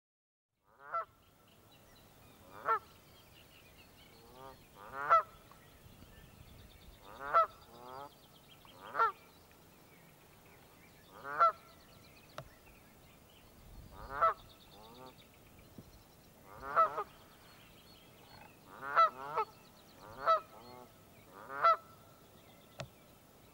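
Canada geese honking: a loud two-note honk every second or two, starting about a second in, with fainter honks from other geese in between.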